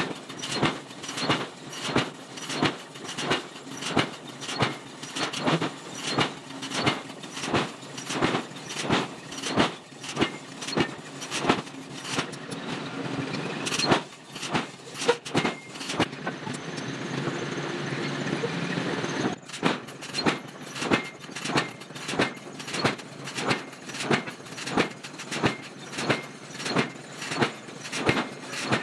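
Forging hammer striking a red-hot steel block in quick, even blows, about two a second. For a few seconds in the middle the blows stop and a steady machine noise runs instead, then the hammering resumes.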